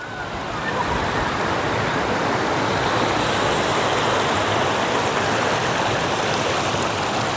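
Waterfall: a steady rush of falling water, growing louder over the first second and then holding even.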